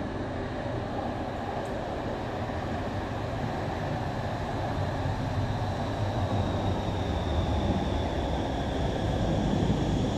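Siemens NF8U Stadtbahn light-rail car arriving at an underground station platform, its wheels rumbling on the rails and growing steadily louder as it approaches and slows. A faint high whine joins about six seconds in and sinks slightly in pitch.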